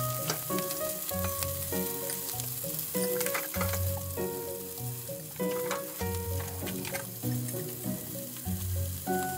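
Pieces of chicken thigh sizzling steadily in oil in a frying pan, with a few light clicks of a measuring spoon against a steel bowl. Background music with a bass line plays throughout.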